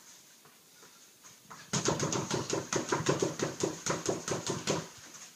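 Boxing gloves striking a freestanding heavy bag in a fast flurry of uppercuts, about six hits a second. The flurry starts nearly two seconds in and stops abruptly about three seconds later.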